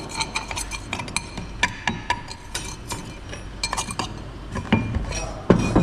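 Metal parts of a truck brake chamber and hand tools clinking and tapping against each other in quick, irregular strokes, with a few heavier knocks near the end.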